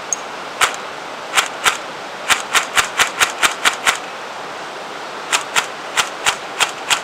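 Electric M41 airsoft gun (AEG) firing BBs in quick single shots, each a sharp snap, about four a second in two strings with a pause of over a second between them.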